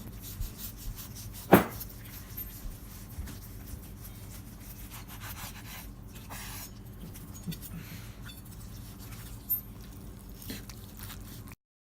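Light handling knocks, clicks and rubbing over a steady low hum, with one sharp knock about a second and a half in; the sound cuts off abruptly near the end.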